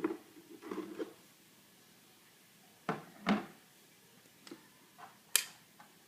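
A series of short knocks and clunks of objects being handled, about seven in six seconds with pauses between them. The sharpest click comes near the end.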